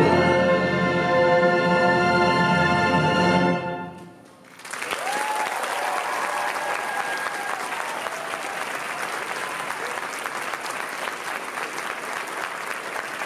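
A symphony orchestra holds the final chord of a ballad and cuts off together about three and a half seconds in. After a brief hush, the audience breaks into sustained applause.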